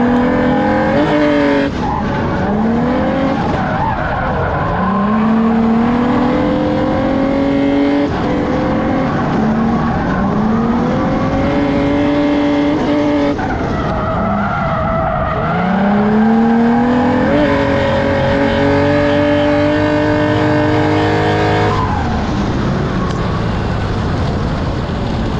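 Infiniti G35's 3.5-litre V6 revving hard through a drift, its pitch climbing and holding high again and again, over continuous tyre squeal and skidding.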